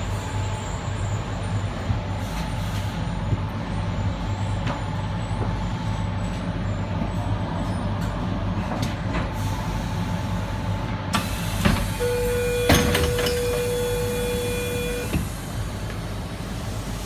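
Suburban electric train coming to a stop at a platform: a steady low hum and a faint steady whine, then a hiss that starts about eleven seconds in with a few clicks. A steady tone sounds for about three seconds near the end.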